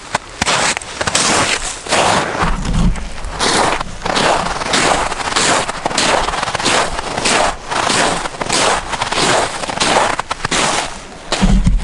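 Footsteps crunching through snow in tall rubber boots, about two steps a second, with two low thumps on the microphone, a few seconds in and near the end.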